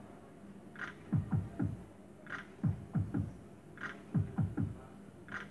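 Lady Luck Around The Clock fruit machine spinning game after game. Every second and a half or so comes a short high electronic blip, then three quick falling tones, one as each reel stops.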